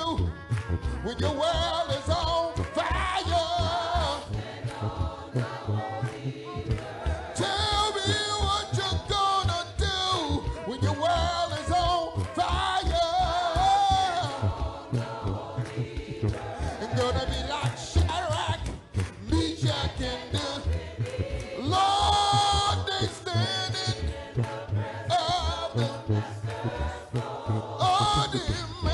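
Gospel choir singing a cappella, voices holding and sliding between sustained notes.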